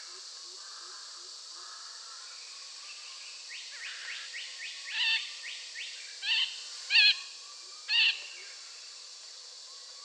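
Long-tailed parakeet calling: four short, harsh notes in the second half, the loudest about seven and eight seconds in, preceded by a quick run of rising chirps. A steady high hiss lies underneath.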